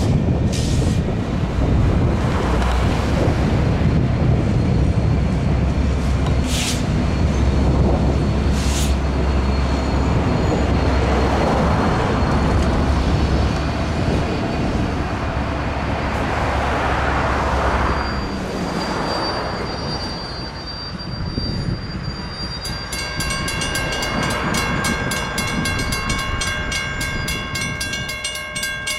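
Union Pacific SD59MX diesel locomotives rumbling slowly past with a heavy low drone, wheel noise and a few sharp clanks from the wheels on the rail. The rumble fades, and from a little after twenty seconds a mechanical crossing bell rings in rapid, even strokes.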